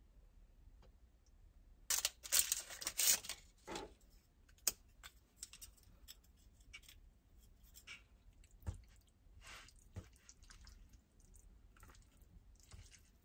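Handling noises: a burst of rustling about two seconds in that lasts a couple of seconds, then scattered light clicks and taps.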